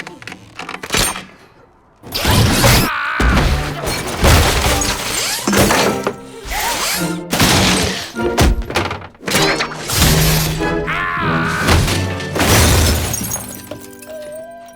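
A slapstick run of loud crashes, thuds and things shattering, with film score music and a voice crying out between the crashes.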